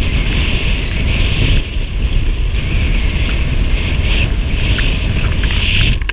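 Wind blasting the microphone of a camera held out the window of a car driving along a sand beach: a steady, loud rush with a deep rumble underneath and a hiss that swells and eases several times.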